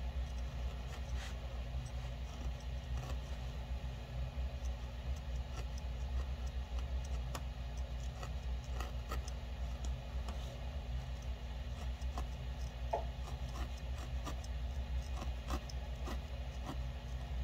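A felting needle stabbing repeatedly into a small piece of wool on a felting mat: a run of light, irregular ticks, over a low steady hum.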